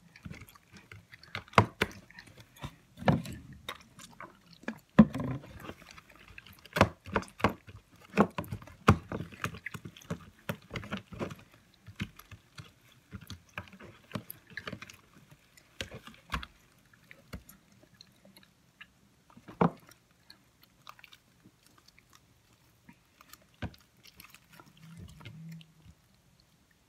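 Sticky, under-activated glue and shaving-cream slime being squished and pulled in the hands, making irregular wet clicks and pops, thick in the first half and sparser later.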